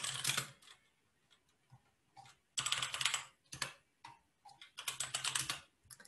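Computer keyboard typing in four short bursts of rapid keystrokes with pauses between them, as a command is typed into a terminal.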